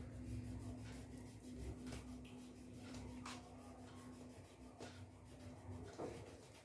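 Faint rubbing of a fingertip smudging black oil pastel on paper, with a few light ticks and a steady low hum underneath.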